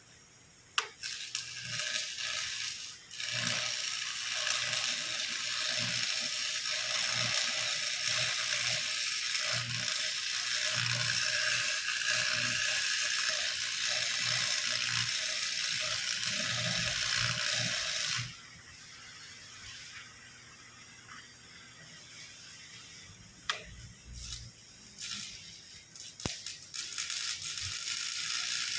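A one-bag concrete mixer running, its drum gearing rattling and clattering steadily. It stops about eighteen seconds in, leaving a few knocks, and starts again near the end.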